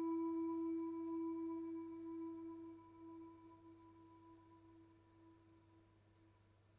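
A single held electronic tone near the E above middle C, with thin overtones, slowly fading away over about five seconds as the piece ends, over a faint low hum.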